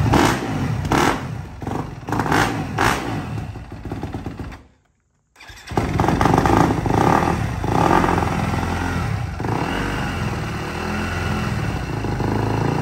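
Yamaha dirt bike engine running while the throttle is blipped in short revs. The sound drops out completely for about half a second near the middle, then the engine carries on with more revs.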